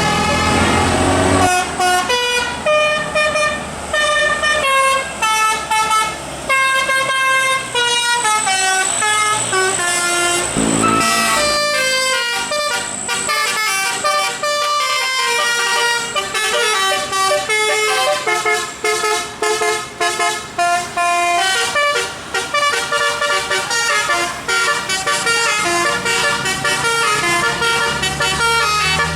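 Bus telolet horn, a multi-tone musical air horn, playing quick melodic runs of stepping notes, with a short sweep in pitch about eleven seconds in. The bus's engine rumbles under it at the start and near the end.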